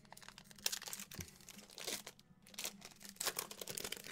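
A trading card pack's wrapper being torn open and crinkled by hand, in irregular crackles and rustles as the cards are pulled out.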